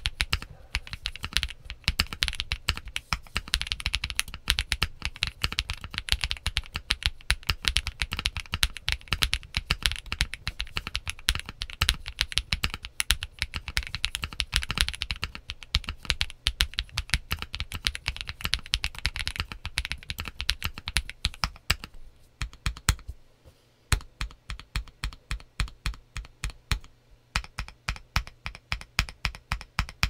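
Mechanical keyboard being typed on: stock, factory-lubed Kinetic Labs Moon V2 linear switches in a Momoka Zoo65 with Whale PBT double-shot keycaps, with a marbly bottom-out and no spring or leaf ping. Fast continuous typing gives way about two-thirds of the way through to slower, evenly spaced single keystrokes, about three a second.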